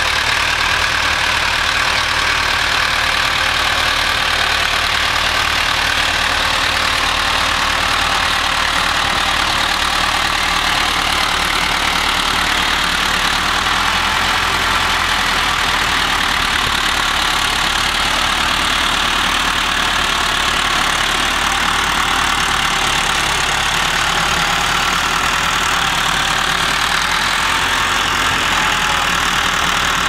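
International Harvester tractor's diesel engine running steadily while it pulls a mounted plough, with no change in pace or level.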